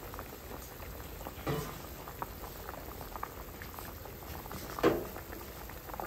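Fish-sauce broth boiling in an aluminium pot of fish pieces, bubbling with a steady crackle of small pops and two louder pops, one about a second and a half in and one near five seconds.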